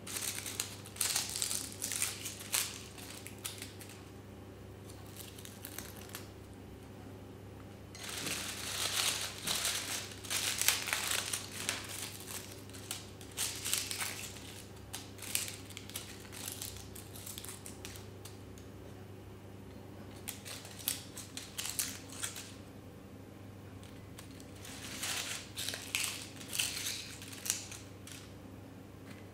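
Dried rose leaves rustling as they are stripped by hand from dried rose stems, in four bursts with pauses between.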